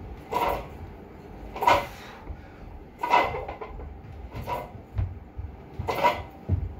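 A set of seated strict presses with a loaded multi-grip bar: a short, noisy burst comes with each rep, about every one and a half seconds, five times. There is a sharp click about five seconds in.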